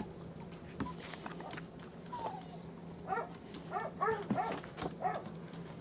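An over-aroused dog whining while held in a stall on a training pedestal. It gives thin, high whines in the first couple of seconds, then a string of short whimpers between about three and five seconds in, the sound of a dog impatient for its release.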